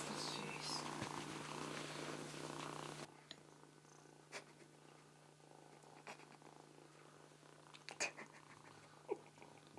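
A kitten purring close up for about three seconds, then after a sudden drop in level a quieter stretch with a few soft taps and clicks as the kitten bats at a toy mouse and a small rubber toy tyre.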